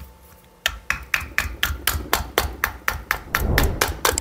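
A fast, even run of sharp clicks, about six a second, starting about half a second in. They come from a hand tool working on the float-chamber lid of an SU carburettor as the lid is being removed.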